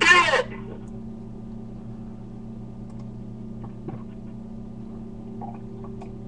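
Steady low electrical hum and room tone, with a brief gliding vocal sound right at the start.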